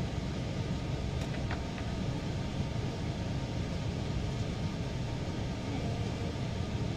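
Steady low rumbling background noise, with a couple of faint clicks about a second and a half in.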